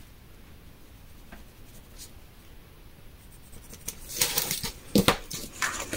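A pen making short marks on kraft cardstock along a steel ruler: a few faint ticks, then from about four seconds in a run of sharp scratches and knocks as the pen, ruler and card are handled.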